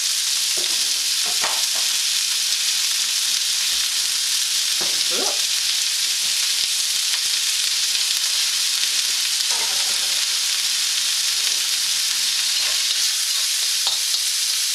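Chopped ginger, garlic and spring onions sizzling in hot sesame oil in a wok: a steady hiss, with a few faint scrapes as they are stirred.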